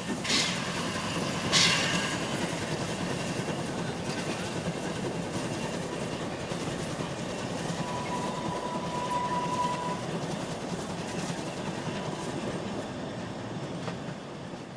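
Narrow-gauge steam train running along the line, making a steady rolling noise. Two sharp, louder hits come in the first two seconds, and a thin steady tone lasts about two seconds near the middle.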